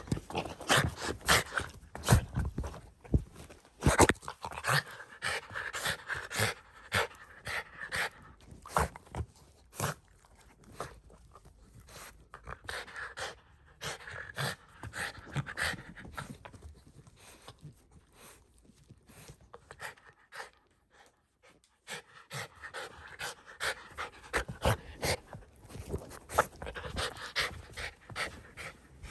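Shiba Inu panting in stretches, with many short clicks and knocks throughout and a quieter spell around the middle.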